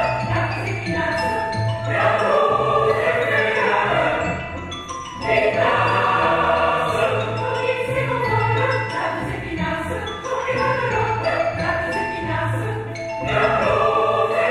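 Large choir singing with an orchestra, the full sound easing briefly about five seconds in before swelling again.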